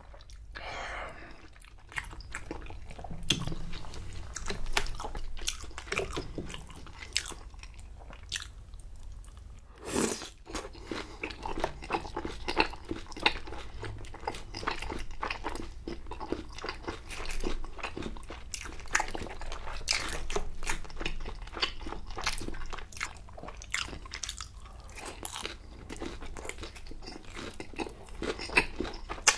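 Close-miked biting and chewing of crispy battered sweet-and-sour pork (tangsuyuk), with many crisp crunches and crackles of the fried coating, in irregular runs throughout.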